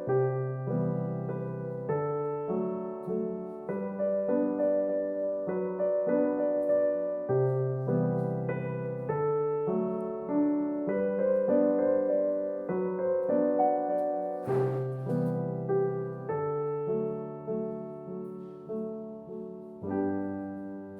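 Background music: a slow, gentle solo piano piece, its notes starting and fading in turn.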